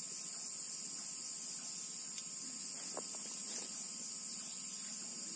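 Steady, high-pitched chorus of night insects, unbroken throughout, with a couple of faint clicks around the middle.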